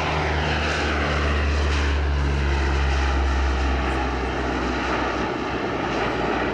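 Lockheed P-3 Orion's four Allison T56 turboprop engines running as the aircraft flies past: a steady low propeller drone under a turbine whine that falls in pitch as it passes.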